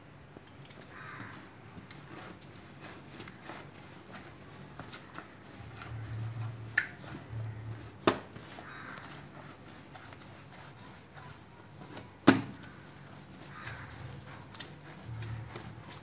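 Hands kneading risen bun dough on a countertop: dull thuds as the dough is pressed and pushed, with bangles clinking in small ticks. There are two sharper knocks, the louder about twelve seconds in.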